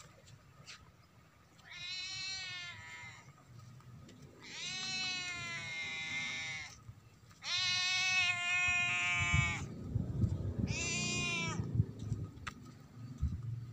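An animal calling four times, long high cries that each fall in pitch at the end. A low rumbling noise follows in the last few seconds.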